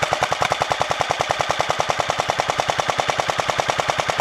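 Airsoft gun firing one long, unbroken full-auto burst: a fast, even stream of shots.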